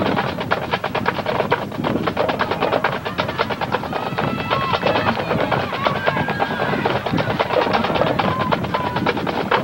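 Marching band drumline playing fast, dense snare drum strokes, with a few short shouts or whistles over it.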